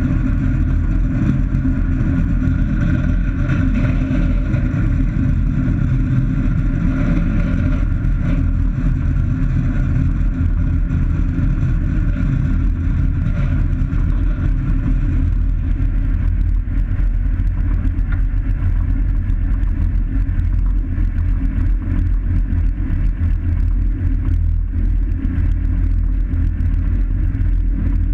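Light aircraft's piston engine and propeller running steadily during taxi, heard from inside the cockpit. The higher tones fade about halfway through, leaving a low rumble.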